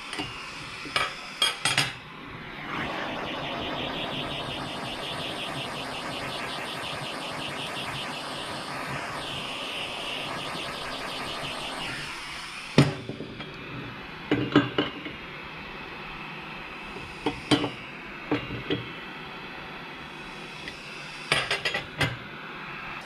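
Handheld gas torch burning with a steady hiss for about ten seconds, gently heating a cast carburettor body. Sharp metallic clinks of a ring spanner and tools on a steel bench come before it and scattered after it.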